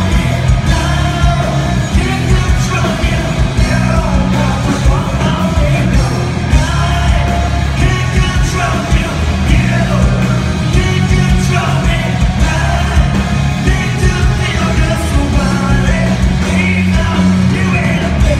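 Live hard-rock band playing loud, with electric guitars, bass and a drum kit under a sung and shouted lead vocal.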